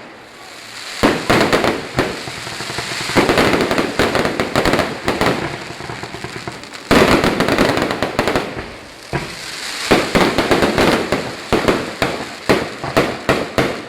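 Fireworks going off: a rapid string of sharp bangs and crackling, coming in waves, with a dense run of reports over the last few seconds.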